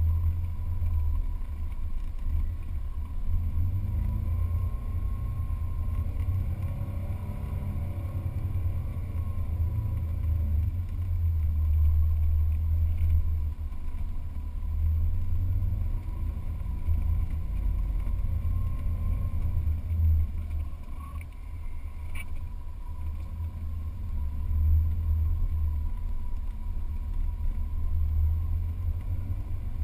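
Jeep Wrangler's engine working while driving over soft sand dunes, a low rumble with the revs rising and falling several times as it climbs and crests the dunes.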